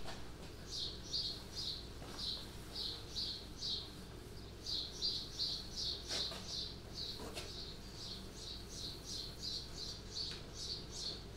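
Paint roller working thick copper anti-fouling paint onto a boat hull, with a fast run of high, chirping squeaks as it turns, and a couple of faint knocks about six and seven seconds in.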